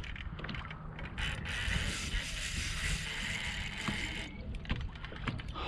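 Fishing reel working against a hooked striped bass with its drag set light: a steady ratcheting whir that starts about a second in and cuts off suddenly near four seconds, with scattered clicks around it.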